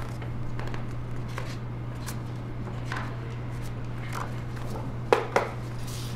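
Indoor room tone: a steady low hum with scattered light clicks and taps, and two sharper clicks in quick succession about five seconds in.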